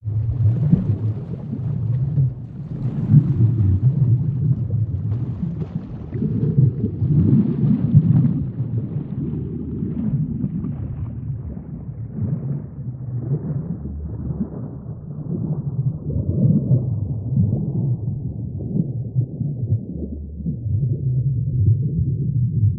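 A deep, churning low rumble, like an underwater ambience or drone, that starts abruptly and carries on steadily, its brighter upper part slowly dying away.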